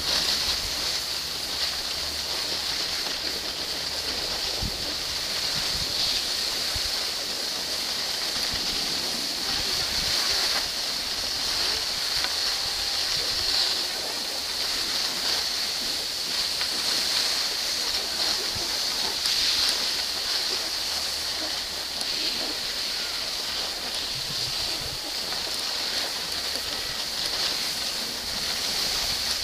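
Skis sliding over packed snow: a steady hiss.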